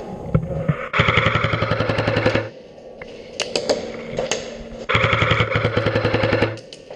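Airsoft rifle firing two rapid full-auto bursts, each about a second and a half long, the first about a second in and the second about five seconds in, with a few single sharp snaps between them.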